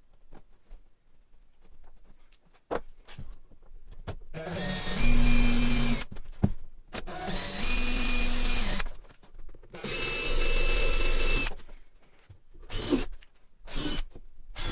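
Electric drill boring through the dinghy's bulkhead, run in three bursts of a second and a half to two seconds each with short pauses between, a bit being stepped up in size to enlarge the hole for an M6 bolt. A few light knocks follow near the end.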